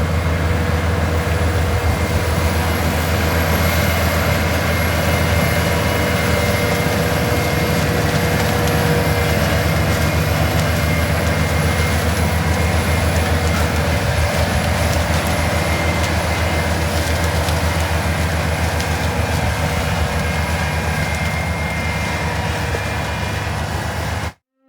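Large sweet corn harvesting machinery running steadily at close range, a deep continuous engine drone that cuts off abruptly near the end.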